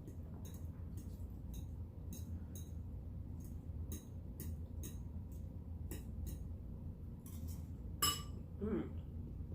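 Cutlery clinking against dishes: a string of light, sharp clicks every half second or so, with one louder clink about eight seconds in.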